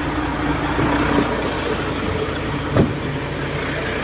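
A vehicle engine idling steadily, with one sharp knock a little under three seconds in.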